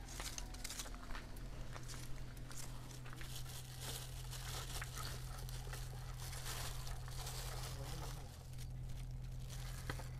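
Crinkling, rustling handling noise with scattered small clicks and knocks, over a steady low hum.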